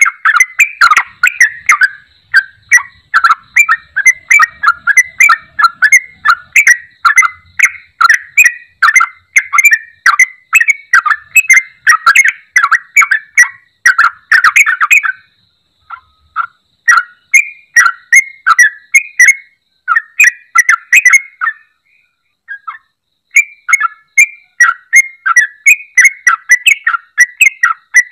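Yellow-vented bulbul (cucak trucuk) in full song: loud, bubbling, chattering phrases repeated about twice a second, with two short breaks, one about halfway through and another about two-thirds through.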